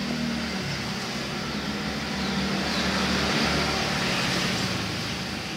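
Steady engine hum and noise of a passing road vehicle, growing louder in the middle and easing near the end.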